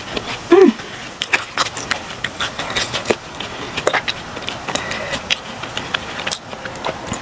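Plastic ketchup squeeze bottle being handled and squeezed onto a plate. A brief, loud pitched squeak comes about half a second in, then scattered small clicks and squelches.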